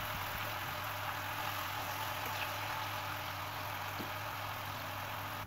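Diced onions sizzling steadily in hot vegetable oil in a frying pan.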